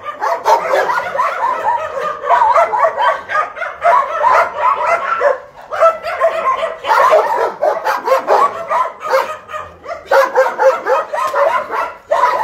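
Many kennelled shelter dogs barking and yipping at once, a dense, overlapping chorus with two brief lulls, one around the middle and one near the end.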